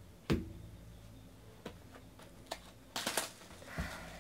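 A knock as something is set down on the table about a quarter second in, a few light taps, then the crackling and tearing of plastic shrink wrap being ripped off a sealed trading-card box near the end, with another knock.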